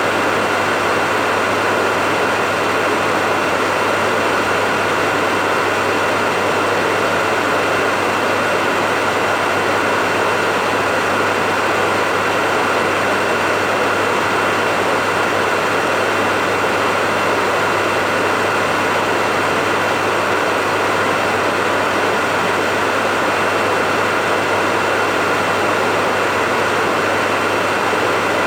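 Hair dryer running steadily: an even rush of blown air over a steady motor hum and a faint high whine, unchanging throughout.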